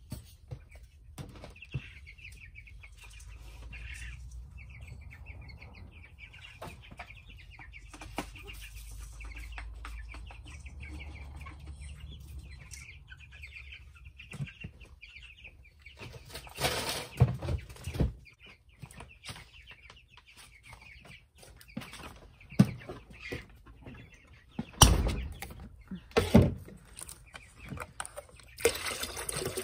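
Baby chicks in a brooder peeping in a fast, high run through the first half. Later come loud bursts of rustling and knocking as the brooder is tended, and near the end water starts pouring steadily.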